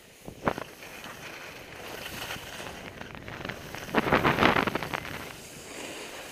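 Wind buffeting the microphone while sliding down a packed snow slope, with the hiss of edges on snow; a short scrape about half a second in and a louder, longer scrape of edges on snow about four seconds in, during a turn.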